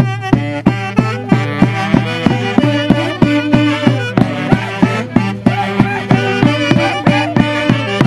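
Traditional Andean Santiago music from a wind band: saxophones carry the melody over a steady drum beat of about three strikes a second.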